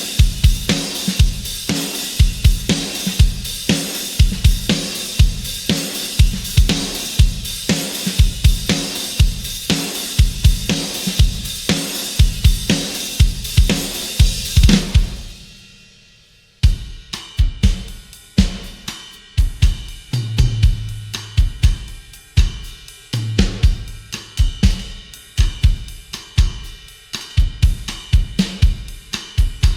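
Sampled acoustic rock drum kit from EZdrummer 3's Hard Rock EZX library playing a groove of kick, snare and cymbals. It fades out about fifteen seconds in, and a second groove with kick, snare and hi-hat starts a second or so later.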